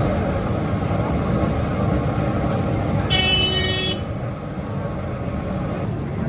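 Steady street traffic rumble, with a vehicle horn sounding once, briefly and high-pitched, about three seconds in.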